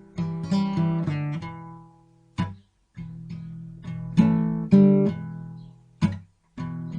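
Acoustic guitar music, chords and notes plucked and strummed, with two brief gaps.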